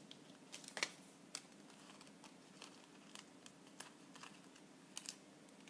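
Quiet paper handling: scattered light rustles and small ticks as a sheet of foam adhesive dimensionals and paper cut-outs are moved about, with a few sharper clicks about a second in and near the end, over a faint steady hum.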